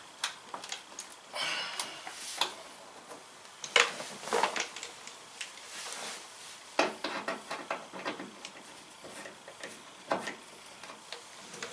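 Irregular clicks, taps and short rustles of a hard plastic mud guard being handled and pressed against a truck fender, with a few sharper knocks.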